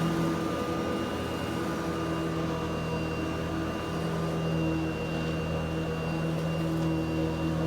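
Eureka SmartVac upright vacuum cleaner running steadily: a constant motor hum with a faint high whine above it.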